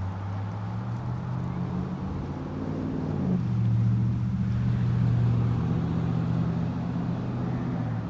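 An engine running steadily, passing by: its hum grows louder to a peak around the middle and eases off toward the end, shifting pitch slightly about three seconds in. Ocean waves wash faintly underneath.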